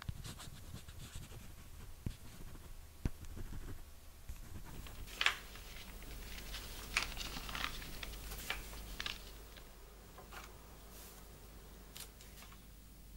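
Sheets of paper being handled and folded by hand, with soft rustles, creasing scrapes and light clicks, busiest in the middle, and a few sharper knocks in the first few seconds.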